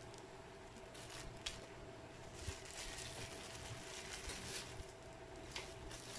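Faint rustling and crinkling of a small clear plastic parts bag handled in the hands, with a few light clicks.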